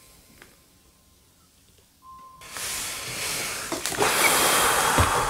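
Faint for the first two seconds, then a loud rustling, scraping noise sets in and builds, with a few knocks near the end.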